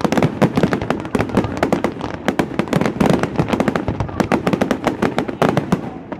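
Aerial fireworks shells bursting in rapid succession, with many sharp bangs and crackles overlapping without a break.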